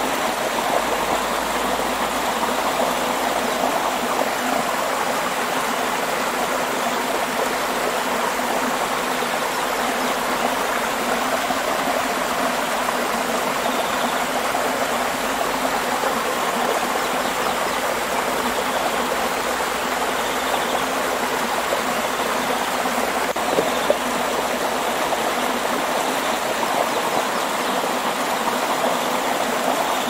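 Steady rush of flowing water, even and unbroken, with one brief faint click about four-fifths of the way through.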